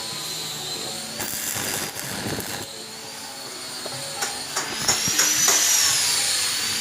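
Electric welding arc from a homemade welding inverter: a steady crackling hiss with scattered sharp pops and a high whine that wavers slowly in pitch.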